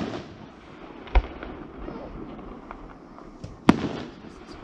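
Aerial firework shells bursting: two sharp bangs, about a second in and again near the end, each followed by a rolling echo, with smaller pops between.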